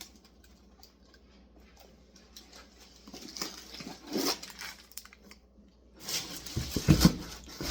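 Light rustling and handling noises as new leather shoes and their packaging are handled. The noises start about three seconds in and grow louder near the end.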